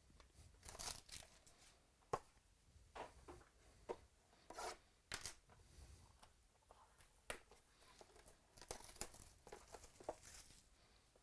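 Faint tearing and crinkling of a trading-card pack wrapper being opened, with scattered light clicks and rustles of card handling.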